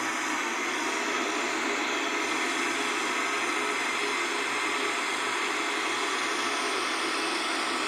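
Electric countertop blender running steadily, whirring as it mixes a runny cornmeal cake batter.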